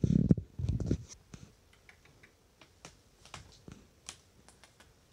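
Kitten's claws picking at carpet and a pile of clothes: scattered light, irregular clicks and scratches. Low thumps and rumble from the handheld phone being moved fill the first second.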